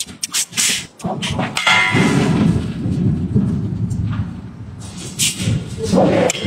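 Open-die power forging hammer working: a few sharp metallic knocks, then a dense low rumble from about a second in, with more knocks and thumps near the end.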